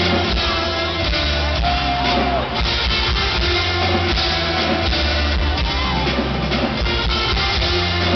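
Live rock band playing loud and steady: drum kit, bass and guitar with violin and trumpet, recorded from the audience at an arena concert.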